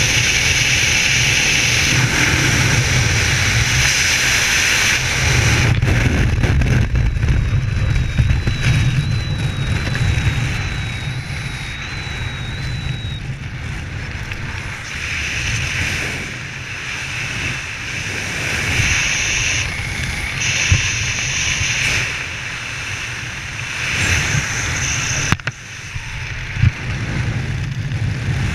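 Wind rushing over the helmet camera's microphone in skydiving freefall, then a quieter, uneven rush under the open parachute canopy after the opening about six seconds in. A faint wavering whistle runs for a few seconds after the opening, and there are a few sharp knocks near the end.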